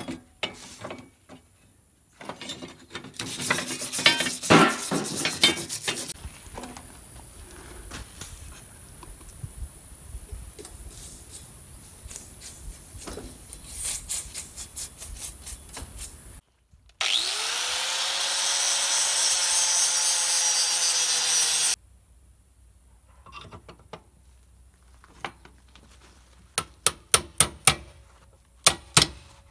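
Rough scraping strokes of a wire brush on forged iron, loudest early on. Midway a small power tool spins up and runs steadily for about five seconds, then cuts off. Near the end come sharp metal-on-metal hammer taps, about three a second, as a hammer head is driven onto its handle.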